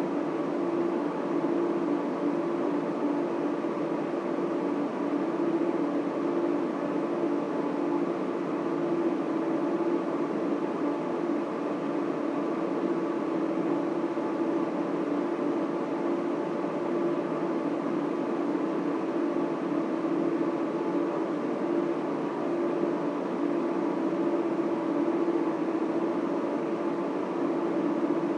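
Steady drone of data center equipment, server and cooling fans running, with a constant low hum under a wash of fan noise.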